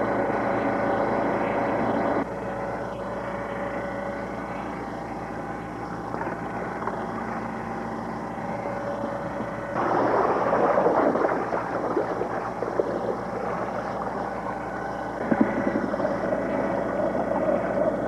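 Steady drone of a ship's machinery at sea. The sound shifts abruptly a couple of times, and a louder rush of noise swells for about two seconds near the middle.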